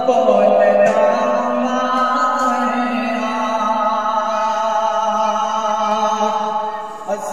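A man singing a naat, an Urdu devotional poem, unaccompanied into a microphone, in long held notes. There is a brief pause for breath just before the end.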